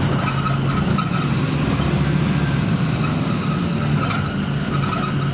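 Volvo B10M bus running along the road with a steady engine drone, over which a high-pitched screech comes and goes; the uploader counts this bus the unhealthiest of its type. A couple of short knocks sound about a second in and near four seconds.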